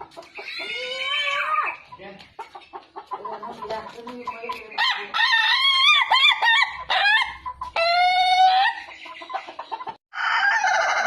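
Rooster crowing three times, each crow a long pitched call, with short clucks and clicks between the crows.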